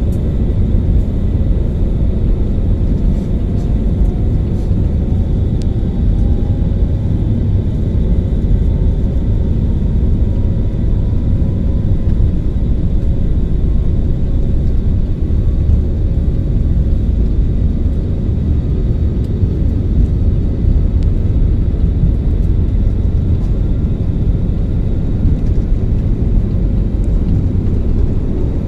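Airliner's jet engines and airflow heard from inside the passenger cabin during takeoff: a loud, steady low rumble, with a faint whine rising slowly in pitch partway through.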